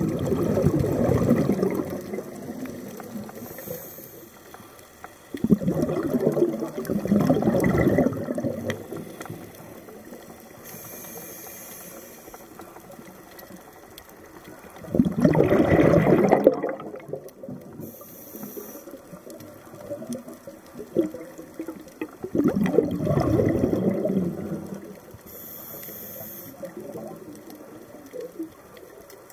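Scuba diver breathing through a regulator underwater: four bursts of exhaled bubbles, one about every seven seconds, each lasting two to three seconds, with a brief high hiss of inhaled air between them.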